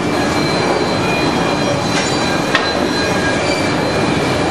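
CNC band saw for cutting chair legs, running steadily with a thin high metallic whine over loud machine noise. A couple of sharp clicks come about two and two and a half seconds in.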